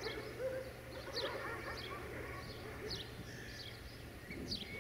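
Birds chirping: short, high, quickly falling calls repeated about once or twice a second, with other wavering calls lower down in the first second or so, over a faint steady low hum.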